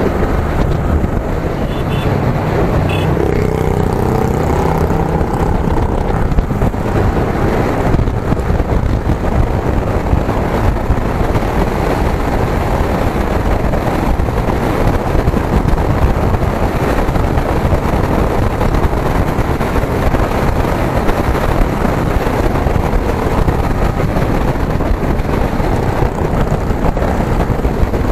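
Wind rushing and buffeting over the microphone of a moving Yamaha sport motorcycle, with its engine and the surrounding traffic underneath, loud and steady throughout.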